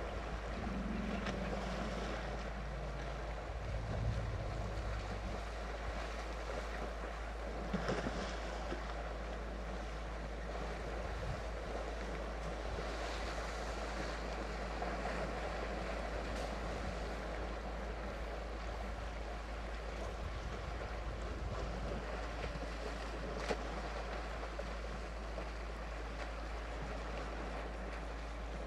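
Steady wind noise on the microphone, with a few short low hums in the first five seconds.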